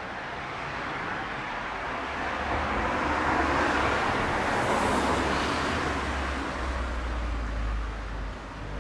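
A car passing along the street: tyre and engine noise swelling to a peak about halfway through, then fading away.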